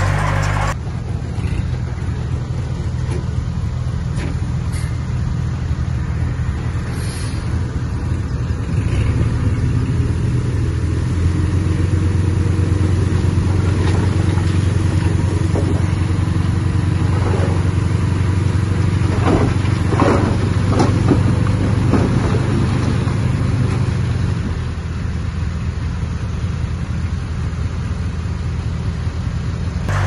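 A heavy earthmoving machine's diesel engine running steadily. It works harder and louder from about ten seconds in until a few seconds before the end. A few brief sharper sounds come about two-thirds of the way through.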